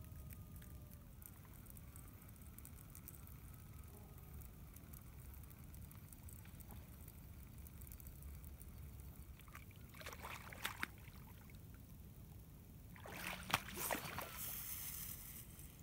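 A fishing cast near the end: a sharp snap, the rod swishing through the air and line hissing off the reel for a second or two. A few clicks of the reel being handled come a few seconds earlier, over a steady low rumble.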